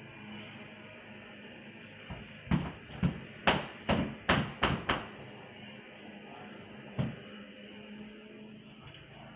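Window-cleaning squeegee on a pole knocking against the window glass and frame: a run of about eight sharp knocks, roughly two a second, starting about two seconds in, then a single knock a couple of seconds later.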